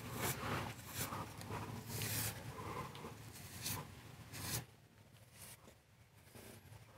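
Damp brush scraping along fresh mortar in the joints between brick slips as the joints are smoothed: a quick series of short scratchy strokes, fainter after about four and a half seconds.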